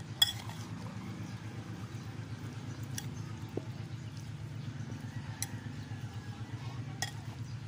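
A metal spoon tossing wet, vinegar-dressed kilawin in a bowl, with a few sharp clicks of the spoon against the bowl, the loudest about a quarter second in. A steady low hum runs underneath.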